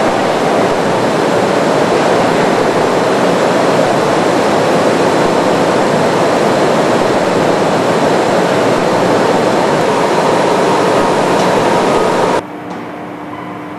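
Loud, steady rushing machine noise in a large hangar. It cuts off abruptly near the end, leaving a quieter hum with a few steady tones.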